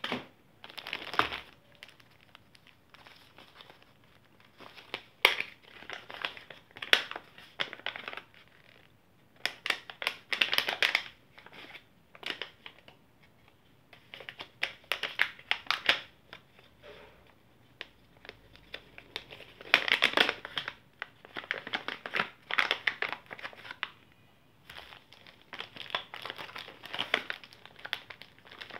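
Small packaging bags crinkling and rustling as they are handled and opened, in irregular bursts with short pauses between.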